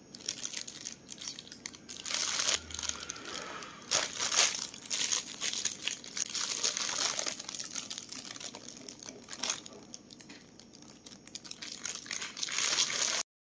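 Thin clear plastic bag crinkling and rustling in irregular bursts as a fried bun is handled and pulled apart inside it.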